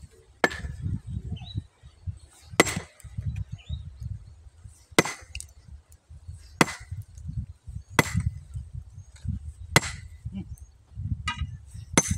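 Sledgehammer striking a large boulder to split it: seven sharp, ringing metal-on-stone blows, one every one and a half to two and a half seconds.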